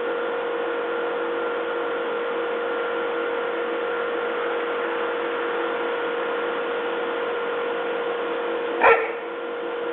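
Steady hum with hiss, and one short bark from a young husky about nine seconds in.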